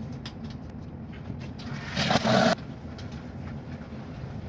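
Water flushing out of a Rheem tankless water heater's drain hose into a bucket after the hot water valve is opened: a steady low rush, with a loud hissing spurt about two seconds in that lasts under a second and cuts off suddenly.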